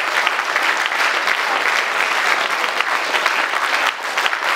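Crowd applauding: dense clapping from many hands, easing slightly near the end.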